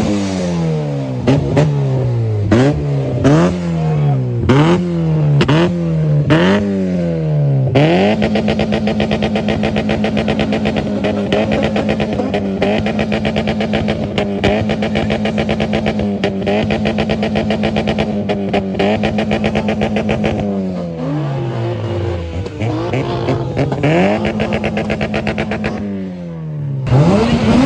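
Car engine revved hard while stationary: several quick blips, then held flat on the rev limiter for about twelve seconds with a rapid stutter as the limiter cuts in. It drops back, holds on the limiter again briefly, and is revved once more near the end.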